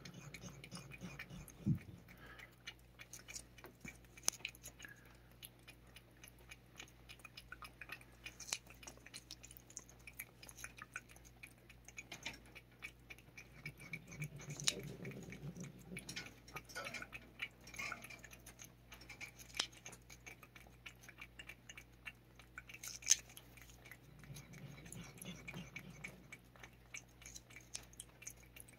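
A cat licking Churu paste from a squeeze tube held in the hand: soft, wet, fast and irregular licking clicks.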